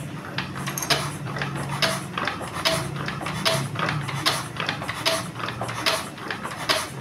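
Metallic clicks, about one every 0.8 s, each with a short ring, from the fuel injection pump of an S1115 single-cylinder diesel being pumped by hand.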